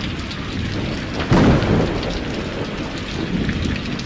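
Heavy rain pouring steadily, with a sudden short, loud, low burst about a second in.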